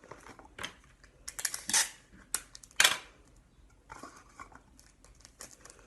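Adhesive tape being pulled off its roll and wrapped around cardboard toilet paper tubes: a handful of short rips and crackles, the loudest about three seconds in.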